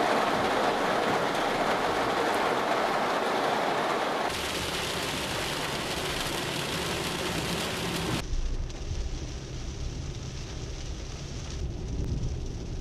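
Heavy rain falling, a dense steady hiss that changes character abruptly about four seconds in. About eight seconds in it gives way to a quieter, lower rumble of a car driving on a wet road.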